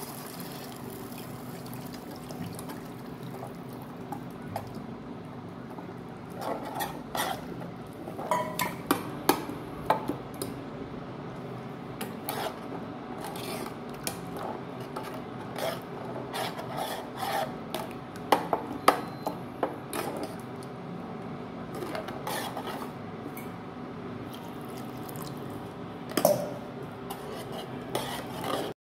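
A metal spoon stirs and scrapes through tomato-tamarind rasam broth in a nonstick saucepan, clinking repeatedly against the pan, over a steady hiss from the hot pan.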